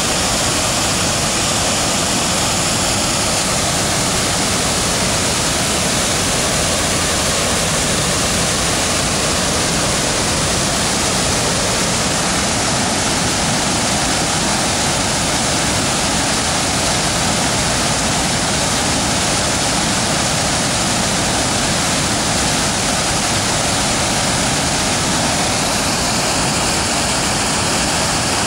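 Water spilling over a low river weir: a steady, loud rush of falling water.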